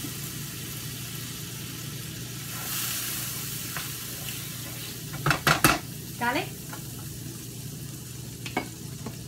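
Butter sizzling in a hot non-stick frying pan as it is sautéed and stirred with a wooden spatula. A quick cluster of sharp knocks comes a little over halfway through.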